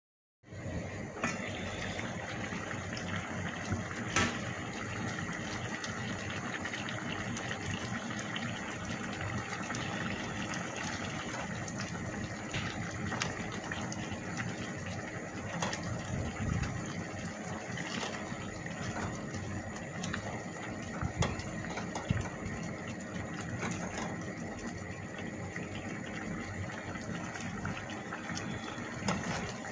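Tomato-based shrimp sauce simmering and bubbling steadily in a pan, with a few sharp clicks of a spatula against the pan as it is stirred.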